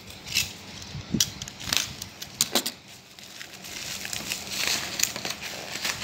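Bubble wrap and plastic packaging being handled and pulled off a box by hand: crinkling, with scattered sharp crackles.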